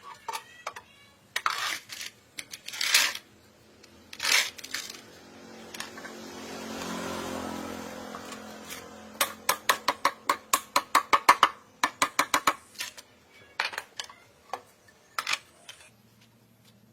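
Clicks and light knocks of hard objects being handled, with a quick run of about four or five clicks a second in the middle. A low steady hum starts near the end.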